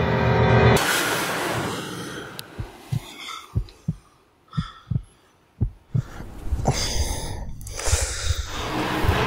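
Heartbeat sound effect: paired low thumps, lub-dub, about once a second for four beats. It comes in as a rush of noise fades, and a steady noisy hiss returns over the last few seconds.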